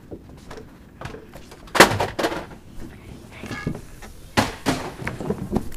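A series of sharp thumps and knocks, the loudest about two seconds in and four more in quick succession near the end, with a short breathy rustle between them.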